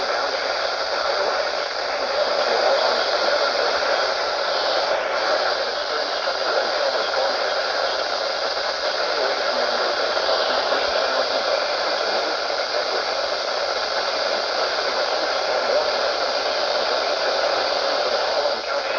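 Steady radio static: a loud, even hiss from a weather radio receiver in the gap between broadcast messages.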